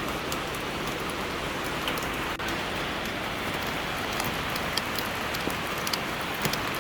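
Steady rain falling as an even hiss, with single drops ticking sharply now and then.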